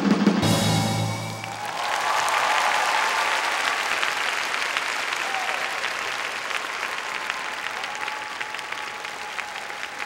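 The rock 'n' roll dance music ends on a low held note that rings out for about a second and a half. Then a large crowd breaks into applause with scattered cheers, slowly dying down.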